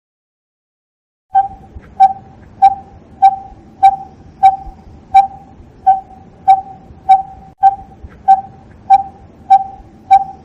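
A bird calling a single hollow note at a steady pitch, repeated evenly about one and a half times a second, starting about a second and a half in.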